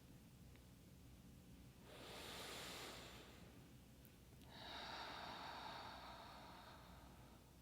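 A woman's breathing exercise: a deep breath drawn in through the nose about two seconds in, then a long, soft sigh out.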